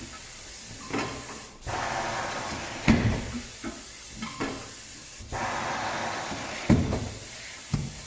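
Tyre bead breaker pushing a car tyre's bead off the rim: two bursts of air hissing, each lasting over a second and ending in a sharp clunk, and another clunk near the end.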